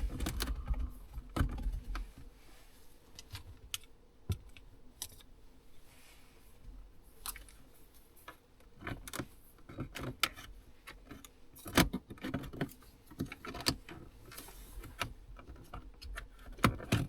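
Irregular clicks, taps and knocks of hands working at plastic dashboard trim panels, feeling for where a panel comes off, with a few sharper knocks.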